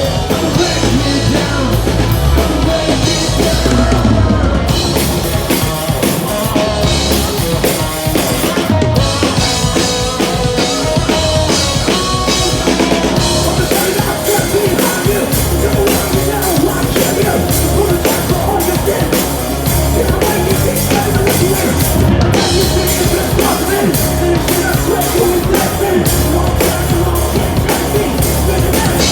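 Hard rock band playing live, with two electric guitars, a bass guitar and a drum kit.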